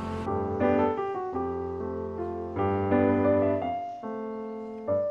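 Background piano music: a slow melody of struck notes and chords.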